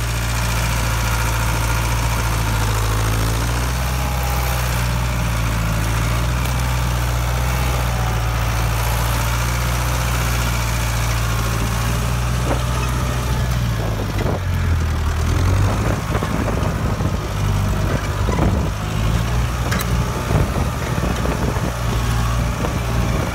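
Ford 6610 tractor's four-cylinder diesel engine running steadily while pulling a three-bottom plow through the ground. About two-thirds of the way through, the engine note turns uneven, with a few knocks and rattles.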